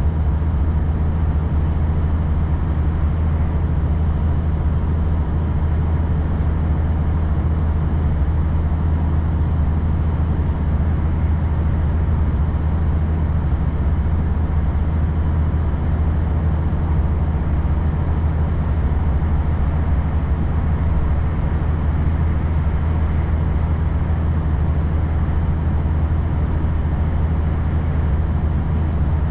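Steady drone of a car driving on a wet road: a constant low engine and road rumble with tyre hiss over it.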